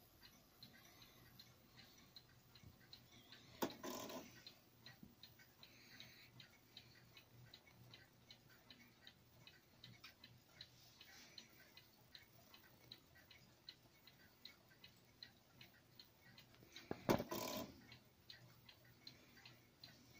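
Poole Model 30 electromagnetic clock ticking faintly and steadily, about two ticks a second, as its pendulum swings. Two louder clunks stand out, about four seconds in and near the end.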